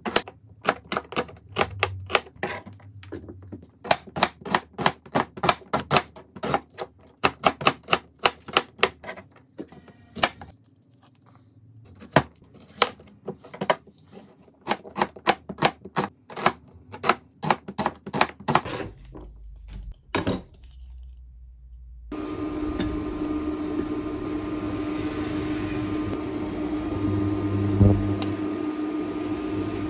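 Kitchen knife slicing an onion on a plastic cutting board: rapid sharp taps in runs, with a pause about a third of the way in. Then, for the last third, butter sizzling steadily in a stainless saucepan, with a soft thud near the end as sliced onions are tipped in.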